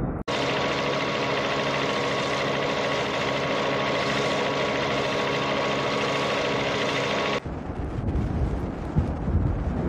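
A steady motor drone at an even pitch, which cuts off suddenly about seven seconds in. A rougher, noisier rumble follows, with one thud near the end.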